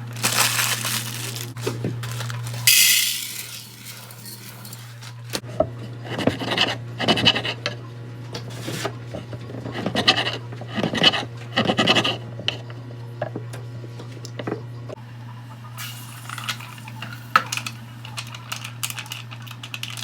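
Dishes and cutlery clinking and clattering in irregular bursts over a steady low hum, with a short hiss of noise about three seconds in.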